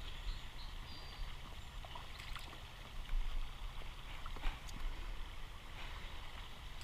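River water splashing and swirling around bare feet wading slowly through a shallow stream, with scattered small splashes over the flow of the water.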